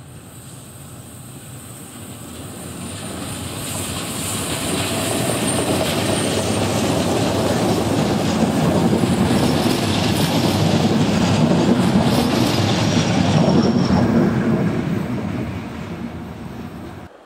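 A ZSSK 'Laminátka' electric locomotive and its passenger coaches passing by, wheels clattering over the rail joints. The sound grows steadily louder as the train approaches, stays loud while the coaches go past, then fades as it draws away, and cuts off suddenly at the very end.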